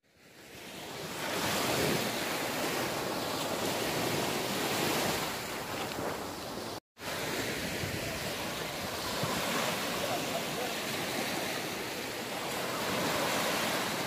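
Small waves breaking and washing up onto a sandy beach, with wind buffeting the microphone. The sound fades in over the first second or two and cuts out for a moment about halfway through.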